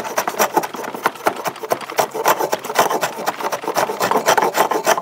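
Metal bench hand plane shaving a wooden block in quick, repeated strokes, a continuous rasping scrape of the blade cutting wood. The block is being planed level and flush.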